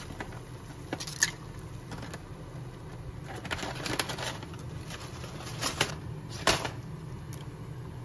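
Water heating in an enamel pot on the stove, with a few light clicks and taps as pieces of dried kelp are dropped in and handled. A steady low hum runs underneath.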